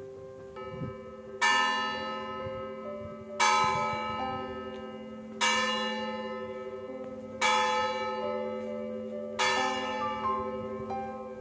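Five bell strikes, evenly spaced about two seconds apart, each ringing out and fading, over background music with a held chord.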